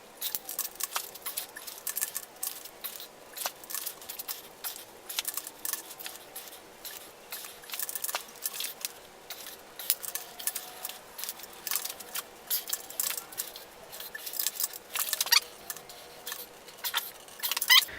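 Torque wrench ratcheting in quick, irregular runs of metallic clicks as the cylinder-head stud nuts are tightened to the final 80 ft-lb step.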